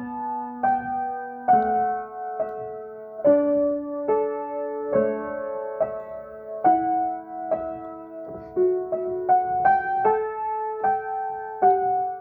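Acoustic piano improvisation: slow chords and single notes struck about once a second and left to ring.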